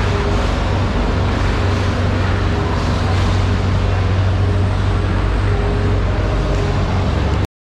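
A steady, loud mechanical drone with a low hum running under it, cutting off suddenly near the end.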